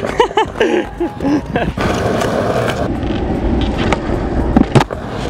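Skateboard wheels rolling over rough concrete, then sharp clacks of the board hitting the ground near the end as a nollie flip is landed. A person laughs in the first second or so.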